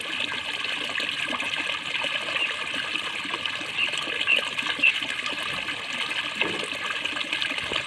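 Water gurgling steadily, with a few brief brighter bubbling pops around the middle.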